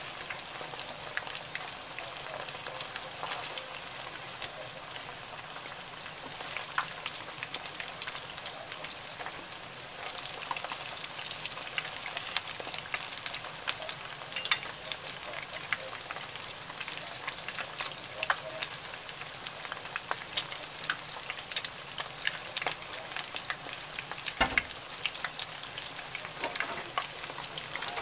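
Fish-paste-stuffed beancurd pieces shallow-frying in hot oil in a nonstick frying pan: steady sizzling with frequent crackles and pops, and one dull knock near the end.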